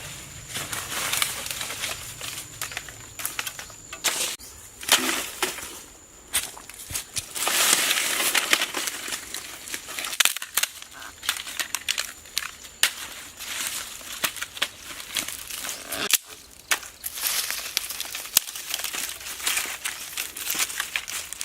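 Irregular rustling and crunching with many sharp clicks and crackles, and a longer swell of rustling about seven seconds in.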